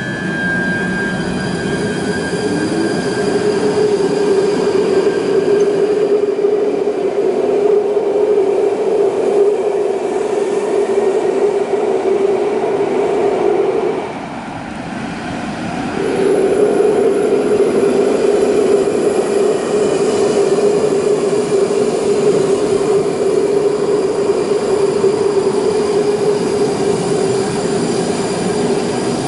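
London Underground 1995 Stock tube train pulling out of the platform, its sound building over the first few seconds into a loud, steady whine with rail noise. After a short dip about halfway, a train runs along the platform with the same steady whine.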